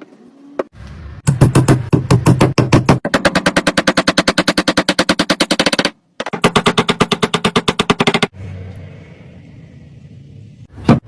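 A woodworking power tool hammering in rapid, even strikes, about a dozen a second. It runs in two bursts with a brief break between them, then drops to a fainter hum.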